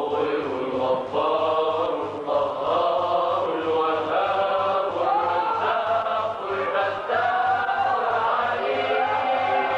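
A group of young men chanting a Sufi devotional song together, their voices holding long notes that rise and fall.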